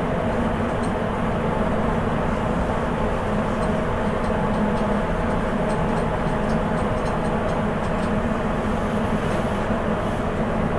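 Sapporo Municipal Subway 8000 series rubber-tyred train running at speed between stations, heard from inside the car: steady running noise with a low hum.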